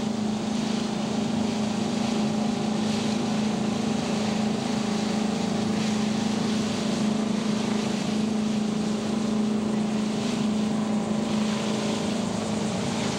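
Boat engine running with a steady, unbroken hum, over a rushing noise of wind on the microphone.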